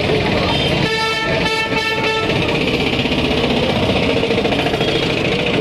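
Auto-rickshaw engine running amid street noise, with a vehicle horn sounding two blasts about a second in.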